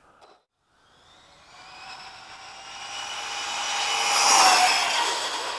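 ARRMA Typhon 6S BLX RC buggy on a full-throttle speed pass, its brushless electric motor whining ever louder as it races in. The whine is loudest about four seconds in, dips slightly in pitch as the buggy goes by, then fades.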